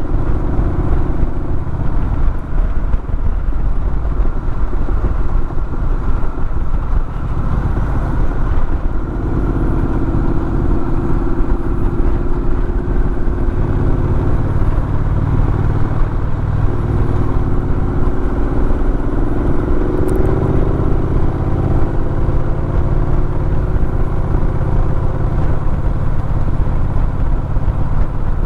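A vehicle's engine and road noise while driving, steady throughout, with the engine note shifting and rising a little a few times.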